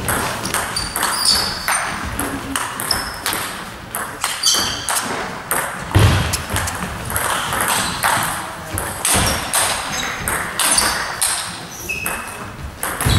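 Table tennis rally: the ball clicks off the bats and bounces on the table in a fast, irregular back-and-forth exchange. A heavier thud comes about six seconds in.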